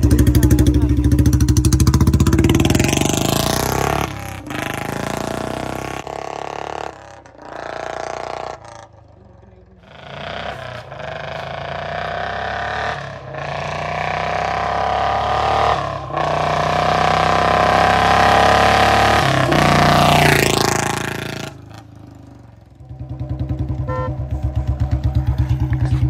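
Royal Enfield Bullet BS6 single-cylinder engine breathing through a long-bottle, wide-mouth aftermarket silencer: it revs up, pulls away and fades into the distance, then grows louder as the bike rides back past, its note falling as it goes by. Near the end it idles close by with a steady, loud thump.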